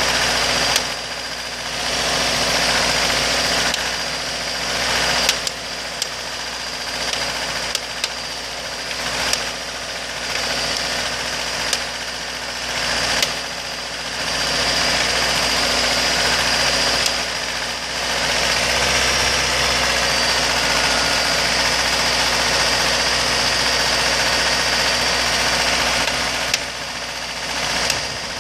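2003 Acura RSX's K20A3 2.0-litre four-cylinder engine running warm at idle and around 1800 rpm, with a really loud tap or clicking coming from the engine; sharp clicks stand out a few times. The cause of the tap is unknown.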